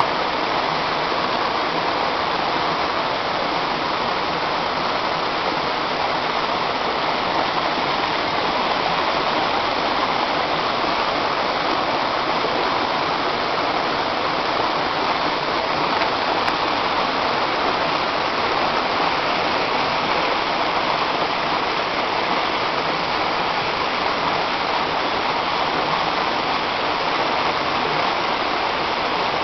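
Shallow, rocky mountain river rushing steadily over boulders and down a small cascade.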